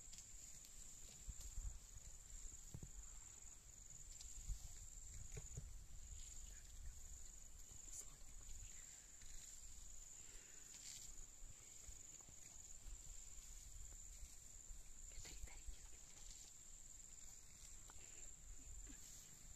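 Near silence in open grassland: a faint, steady high-pitched insect drone, with occasional faint low rumbles and a few light clicks.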